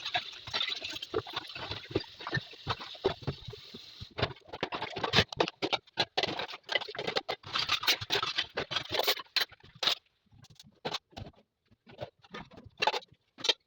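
Irregular clatter of small taps and knocks, as household items are handled and set down during kitchen cleaning, with brief pauses near the end.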